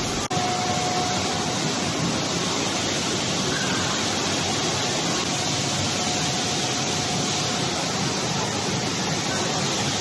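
Steady machine din of a PET bottle production line's conveyors running, filled plastic bottles jostling along the chain tracks, with a faint steady tone through it. The sound drops out briefly just after the start.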